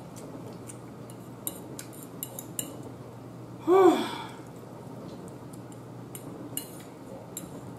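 Close-up eating sounds: a fork clicking and scraping on a plate and small chewing clicks. About four seconds in, a loud hummed "mm" that rises and falls in pitch.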